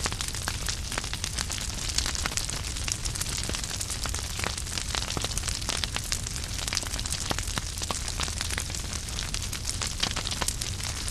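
Wood fire burning in a fireplace: steady hiss and low rumble of the flames with frequent sharp crackles and pops from the burning logs.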